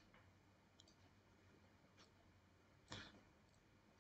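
Near silence with a few faint computer mouse clicks, the loudest about three seconds in.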